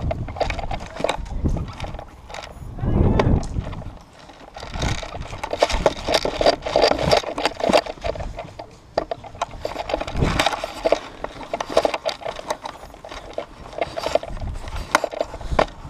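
Footsteps on dry dirt and grass with gear rattling, a run of short sharp clicks and knocks, and a low rumble about three seconds in.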